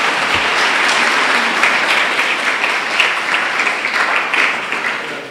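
Audience applauding, a dense clatter of many hands clapping that begins to die away near the end.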